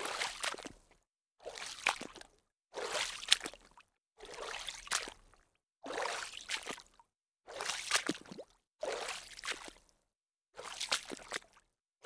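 Water splashing in a series of separate splashes, each lasting about a second, with silent gaps between. There are about nine in all.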